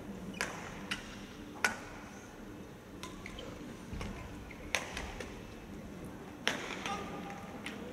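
Badminton rackets striking the shuttlecock in a rally: several sharp cracks at irregular intervals, the loudest about a second and a half in.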